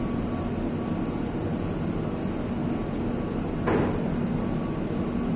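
Split air conditioner running with a steady low hum while its refrigerant gas is being charged, with a single sharp knock about two-thirds of the way through.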